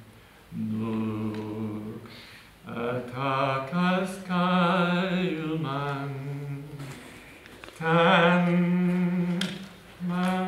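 A man singing long wordless notes, one at a time, stepping up and down in pitch, with a wavering vibrato on the higher held notes.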